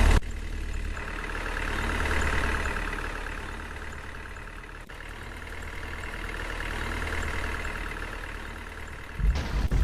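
A vehicle engine running steadily at idle, its drone swelling and fading, with a few loud low thuds near the end.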